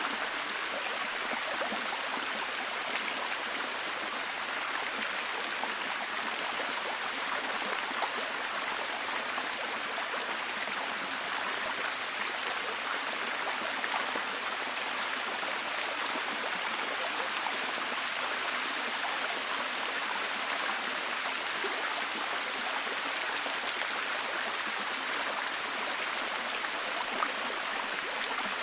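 Rainforest ambience of steady falling water: an even hiss with many small drop-like ticks scattered through it, unchanging throughout, with no bird or insect calls standing out.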